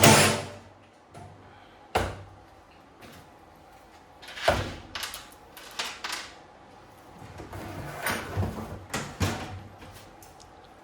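Irregular knocks, clunks and clatter of hand tools and metal generator parts being handled on a workbench while the fuel tank is unbolted and lifted off. The loudest knock comes right at the start, and a cluster of clunks follows near the end.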